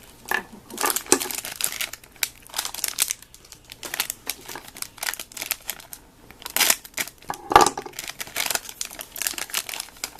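Packaging wrappers crinkling and crackling in irregular bursts as small toy figure packs are torn and picked open by hand, with one sharp click about seven and a half seconds in.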